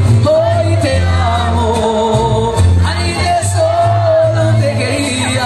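Mariachi band playing live: violins and trumpets carry long held melody notes over strummed guitars and a deep bass line in even pulses.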